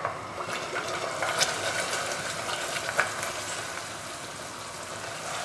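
Spoon stirring condensed milk into melted butter and sugar in a saucepan on the heat, the mixture sizzling steadily, with a few sharp scrapes and knocks of the spoon against the pan.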